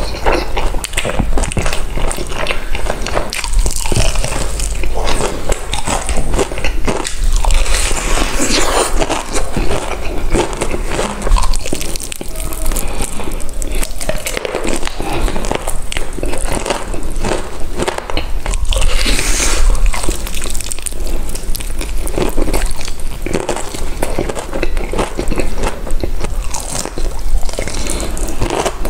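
Close-miked eating: repeated crunchy bites and chewing, with dense, irregular crackles throughout.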